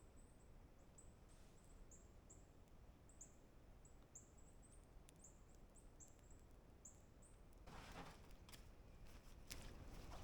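Faint, high chirps repeating about twice a second over near silence, from a small creature at the campsite. Near the end the chirps stop and rustling with a few sharp clicks comes in.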